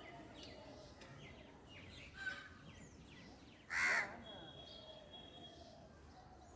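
A crow caws once, loudly, about four seconds in, over faint chirps and a short whistle from small birds.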